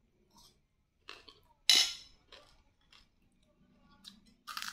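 Metal spoon clinking against a bowl while eating: one sharp clink a little under two seconds in, with a few softer clicks and taps around it.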